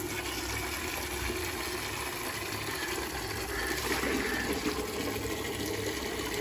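Water running steadily from a hose.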